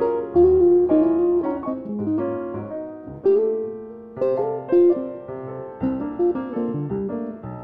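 Jazz piano playing a slow ballad, single notes and chords struck and left to ring and fade, growing softer before fresh chords about three and four seconds in.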